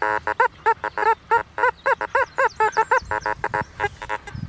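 Metal detector beeping rapidly as its coil is swept over a dug-up find, about five short tones a second. Many of the tones rise and fall in pitch, and flatter, lower tones come near the end: the detector's response to the find, which the detectorist then reads as iron.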